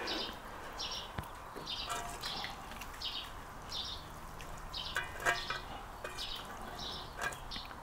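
A bird chirping over and over, a short high chirp every half second or so, against faint countryside background noise, with a few light clicks near the middle and near the end.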